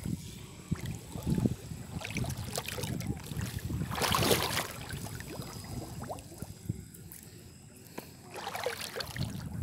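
Pond water splashing and sloshing in several short bursts, the loudest about four seconds in, as a gill net is laid among lotus plants.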